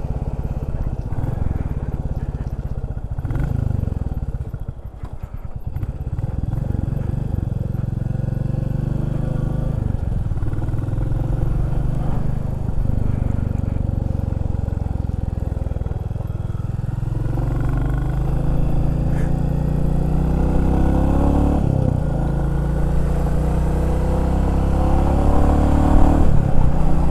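Motorcycle engine and wind noise heard through a comms microphone inside a full-face helmet with the visor down, at road speed. The engine note falls and rises several times and grows stronger toward the end.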